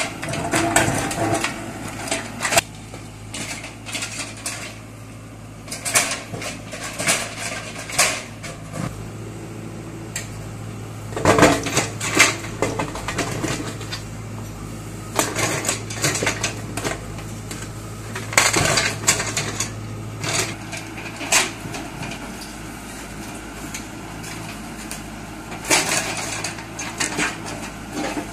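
JCB 3DX backhoe loader's diesel engine running steadily while its excavator bucket digs into and scrapes a pile of broken concrete rubble. Clusters of clattering and knocking from concrete chunks and debris come every few seconds over the engine hum.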